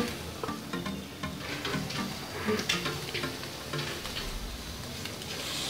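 Pork ribs sizzling on the grates of a gas grill, under soft background music.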